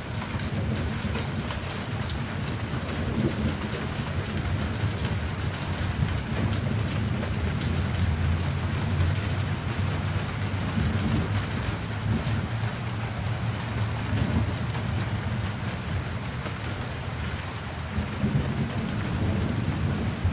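Steady rain falling, with sharp drop ticks close by, under a low rumble of thunder that swells and eases several times.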